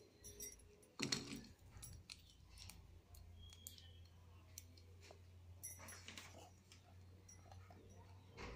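Green chillies dropped into a dry iron kadai: a light clatter about a second in, then faint scattered clicks of the chillies and the pan, over a low steady hum.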